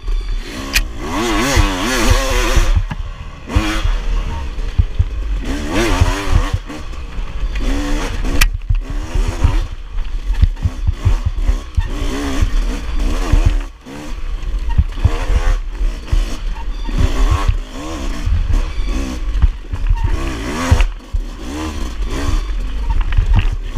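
Off-road enduro motorcycle engine revving up and down over and over as the throttle is worked along a trail, with frequent knocks and rattles from the bike over rough ground.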